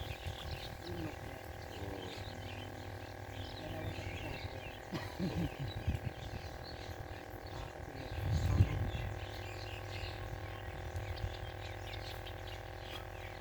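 Outdoor ambience with scattered bird chirps over a steady hum, broken by low thumps about five seconds in and again, louder, a little past eight seconds.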